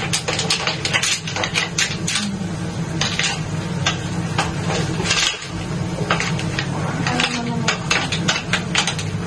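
A cooking utensil stirring crabs and shrimp in a pan, with quick, irregular clinks and scrapes against the pan, over a steady low hum.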